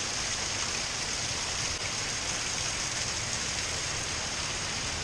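Steady rain coming down hard, an even hiss that does not change.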